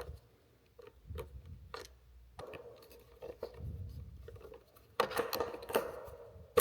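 Clicks and scraping of a small 1/4-inch screwdriver tool turning a T15 Torx screw as it is tightened. Scattered at first, the clicks grow louder and denser about five seconds in.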